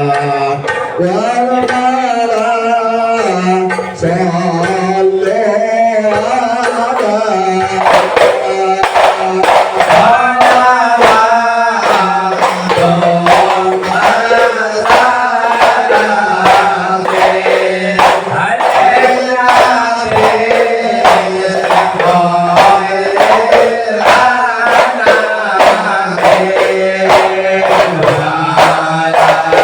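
Islamic devotional song (sholawat) sung by a male voice. A steady drum beat joins in about eight seconds in and runs under the singing.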